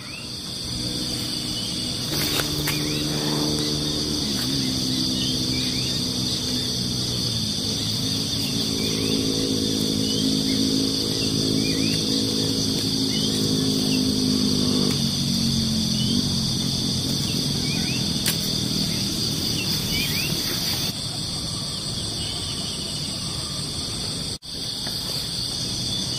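Dawn outdoor ambience: a steady high insect drone with many short chirps through it. A low hum of several held pitches runs in the background from about two seconds in until just past the middle.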